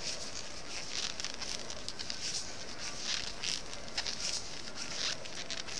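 Circular knitting needles and yarn being worked stitch by stitch: repeated soft swishes of yarn drawn over the needles, with light clicks of the needle tips.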